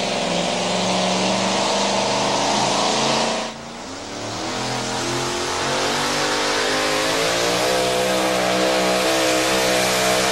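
Supercharged engine of a two-wheel-drive super modified pulling truck running at full throttle while it drags a weight-transfer sled. The engine note dips sharply about three and a half seconds in, then climbs again and holds high under load.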